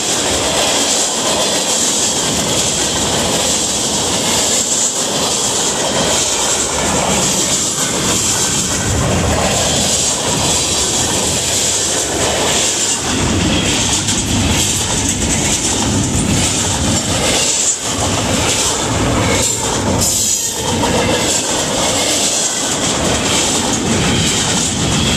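Freight cars of a long mixed freight train rolling past close by: a steady, loud rumble and clatter of steel wheels on the rails.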